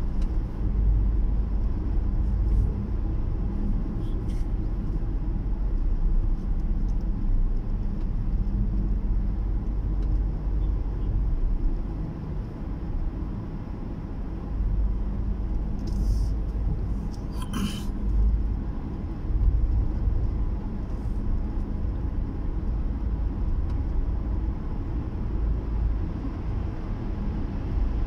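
Steady low road rumble of a car driving on a highway, heard from inside the cabin: engine and tyre noise. A single short click sounds about two-thirds of the way through.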